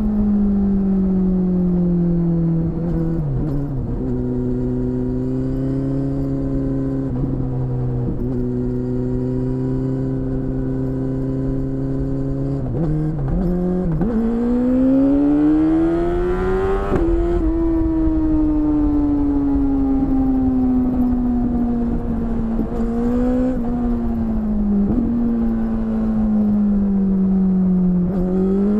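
BMW S1000RR's inline-four engine with an Akrapovic exhaust, heard from the rider's seat while riding. The revs fall, hold low and steady for several seconds, then climb hard for about three seconds and drop sharply at a gear change. They then ease slowly down with a few brief blips and pick up again near the end, over a low wind rumble.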